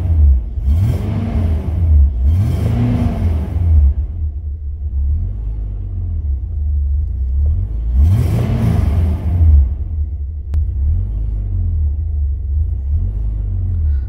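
2003 Mitsubishi Pajero NP's 3.8-litre V6 running, heard from inside the cabin, its engine speed rising and falling three times and otherwise idling unevenly. The rough, fluctuating idle is caused by a mass airflow sensor with an internal fault (code P0100).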